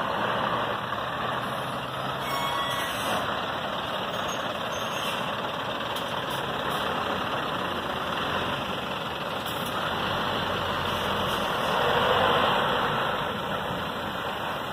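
Scania R500 truck with its V8 diesel pulling a refrigerated trailer slowly past at close range, a steady run of engine and tyre noise that swells about twelve seconds in as the trailer goes by. A brief beeping sounds about two seconds in.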